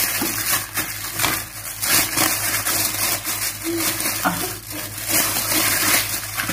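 A hand covered by a plastic bag squeezing and mixing sticky sweet-bread dough in a stainless steel bowl, with irregular crinkling and squishing.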